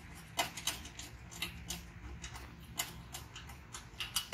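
Irregular sharp clicks and taps, about ten in four seconds, of hand tools and small metal parts being handled during small-engine reassembly.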